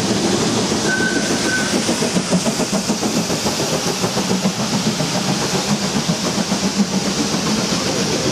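GWR Prairie 2-6-2T steam tank locomotive No. 5521 pulling out with its train: its exhaust beats and steam hiss come in an even, pulsing rhythm, with the rumble of the carriages on the rails underneath.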